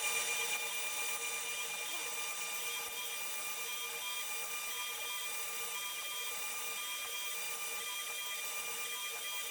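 CNC router milling a beech workpiece: a steady, even whine and hiss with several fixed tones, and a faint higher tone that comes and goes about once a second.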